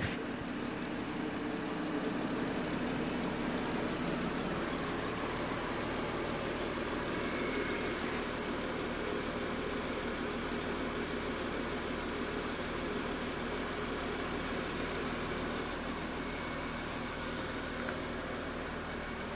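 Honda Pilot's 3.5-litre VTEC V6 engine idling steadily.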